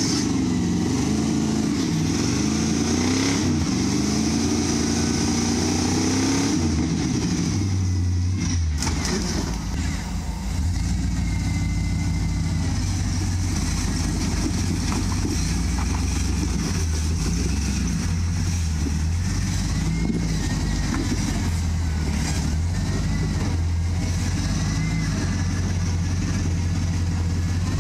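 Lifted Jeep Wrangler's engine revving as it crawls up a rock slope, the revs rising and falling for the first several seconds, then running at lower, steadier revs with occasional blips.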